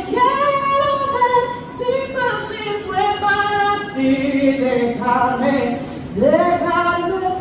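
A woman singing solo into a microphone, unaccompanied, holding long drawn-out notes that slide from one pitch to the next, with a swoop up to a higher held note about six seconds in.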